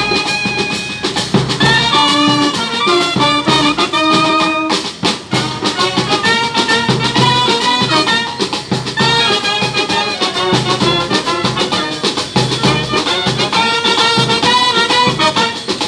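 Military brass band playing a tune: trumpets and euphoniums carry the melody over a steady beat from a bass drum and snare drum.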